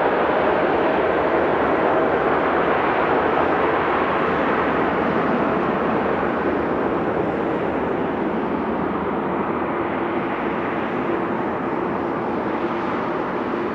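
Jet engines of a Boeing twin-engine widebody airliner on its takeoff run and climb-out, a loud steady roar. A faint tone within it slides slowly down in pitch as the aircraft passes and moves away, and the roar eases slightly near the end.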